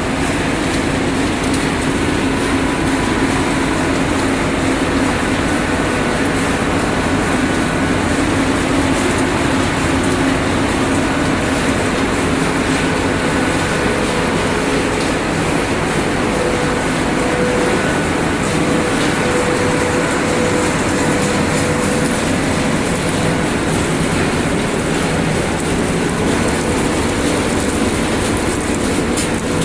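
Refrigerator dismantling and recycling line machinery running: a steady, loud mechanical din with a faint steady hum and no pauses.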